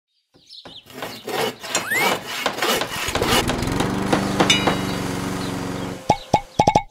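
A montage of toy sound effects: scattered clicks and knocks, a whistle rising in pitch about two seconds in, then a steady small motor humming, ending in a quick run of short ringing pops.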